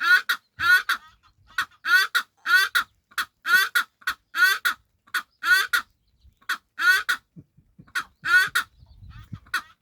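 Bird calls: short, quick double notes repeated about once a second, fading out near the end.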